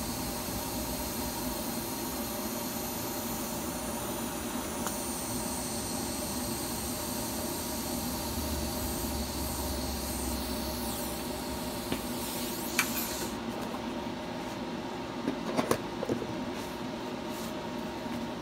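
TIG welding arc on stainless steel hissing steadily over a steady hum. The hiss cuts off about thirteen seconds in, and a few light knocks and clicks follow.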